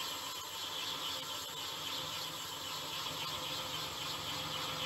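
Metal lathe running while a rear-mounted parting tool cuts through a spinning cast iron bar: a steady low machine hum under a continuous hissing cut, with no chatter.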